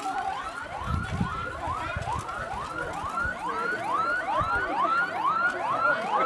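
An electronic siren sounding a fast repeated rising whoop, about two and a half a second, growing louder toward the end.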